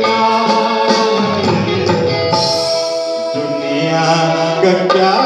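A man singing into a microphone over live band accompaniment, with one long held note in the middle.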